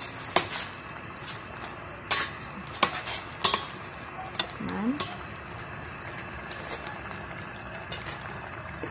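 Metal ladle stirring squid adobo in a stainless steel pot, clinking and scraping against the pot in a series of sharp knocks during the first five seconds. Under it the sauce simmers with a steady hiss.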